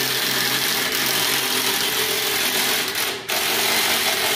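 Cordless drill running steadily, driving a bolt on a snowmobile's front ski and suspension, with a short stop about three seconds in.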